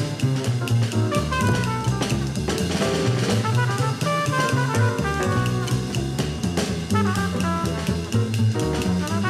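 Jazz music with a busy drum kit and a moving bass line.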